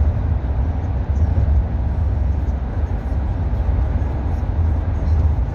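Steady low rumble of a road vehicle driving through a tunnel, heard from inside the cabin: tyre and engine noise.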